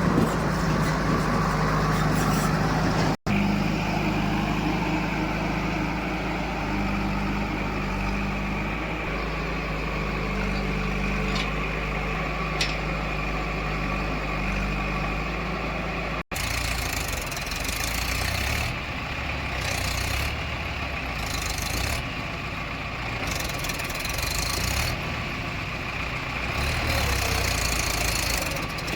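Diesel engines of heavy machinery running steadily, in clips joined by abrupt cuts about three seconds in and again about sixteen seconds in.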